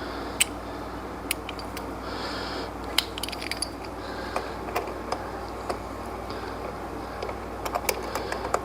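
Metal hand tools clinking and tapping in scattered, irregular sharp clicks, a quick cluster near the end, over a steady low hum.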